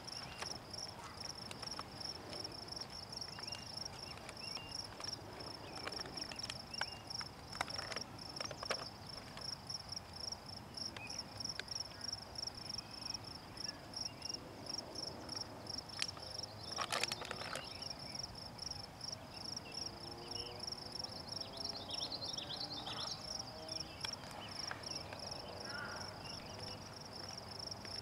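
Steady, high-pitched pulsing trill of calling insects, with a few soft knocks and rustles scattered through, the clearest about seventeen seconds in.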